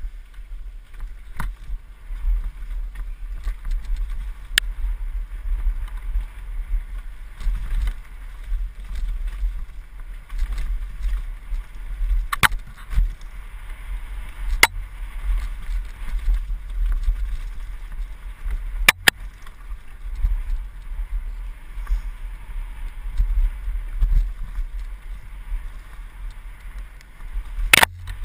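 Mountain bike descending a rocky, rooty dirt trail at speed: a steady low rumble from the ride, with sharp clacks from the bike rattling over bumps a handful of times, the loudest near the end.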